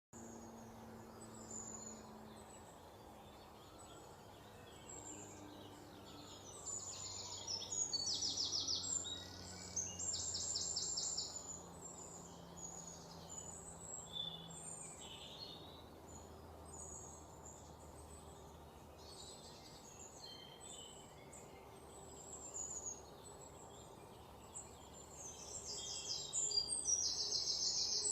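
Birds chirping and singing: many short high chirps, with loud fast trills a few times, over a faint steady background hum.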